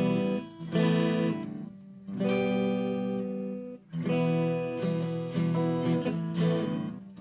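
Harley Benton ST-20 HSS Strat-style electric guitar played through its neck single-coil pickup with no pedals, a clean tone: chords struck and left to ring, changing every second or so.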